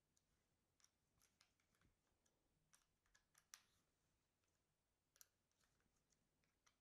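Near silence broken by a few faint, scattered metal clicks: an Allen key turning the blade-clamp screws of an AT-100 hot knife during a blade change.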